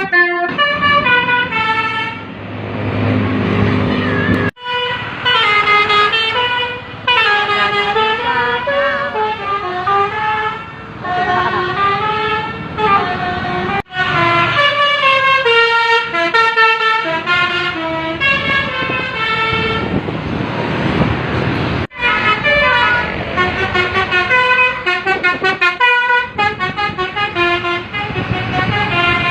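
Indonesian 'telolet' multi-tone bus horns playing short stepping melodies, in several separate clips joined by abrupt breaks.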